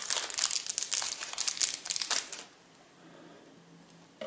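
Thin plastic bag crinkling as it is handled, for about two and a half seconds, then it goes quiet.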